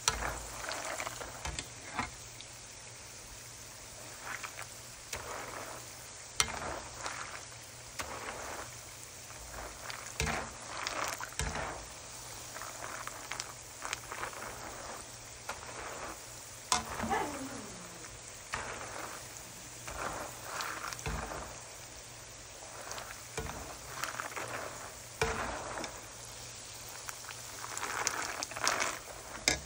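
Peanuts and garlic slices sizzling as they deep-fry in oil, the sizzle rising and falling every few seconds. A wire skimmer scooping through the pan gives a few sharp clinks.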